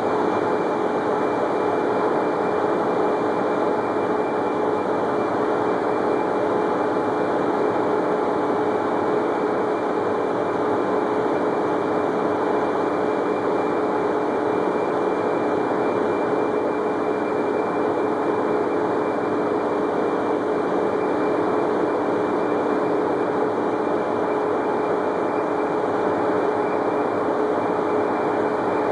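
Raffia tape extrusion line and its factory machinery running: a steady mechanical drone of motors and drives, a loud even noise with several constant hum tones that does not change.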